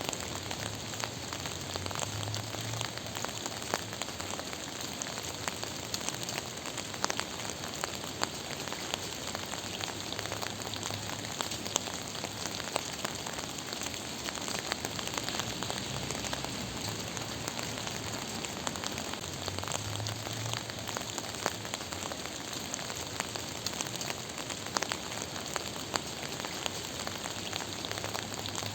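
Gentle, steady rain falling on a surface, an even hiss with many small separate drops pattering through it.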